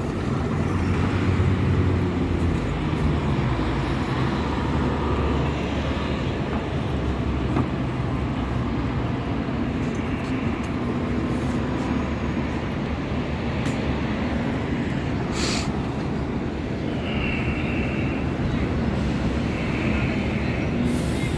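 CTA city buses driving past on a downtown street, their diesel-hybrid engines giving a steady low rumble among the traffic. There is a short hiss about fifteen seconds in.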